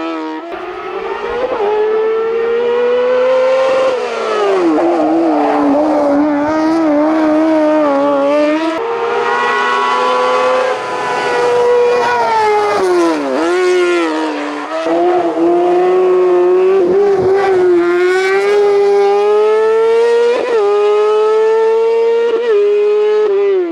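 Racing car engine at high revs, climbing in pitch and dropping sharply several times at gear changes before climbing again.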